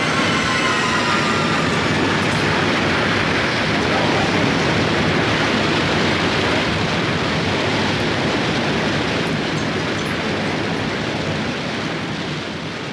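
A loud, steady rushing noise with no pitch or rhythm, fading gradually near the end.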